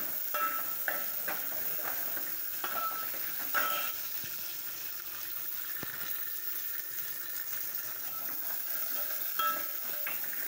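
Crushed garlic and mustard seeds frying in oil in an aluminium pot, a steady sizzle, while a steel ladle scrapes and clinks against the pot during the first few seconds and again near the end. This is the tempering being sautéed for rasam.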